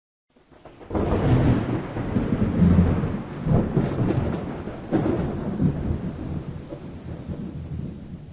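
Thunder: a rolling rumble that swells in about a second in, a second sharp clap about five seconds in, then a slow fade.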